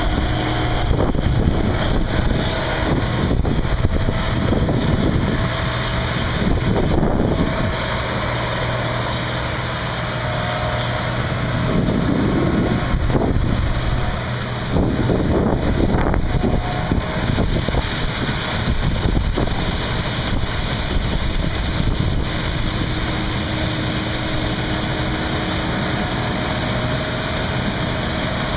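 Heavy farm machinery running steadily: a loud diesel drone with a low hum and a rushing noise that swells for a second or two about twelve and fifteen seconds in.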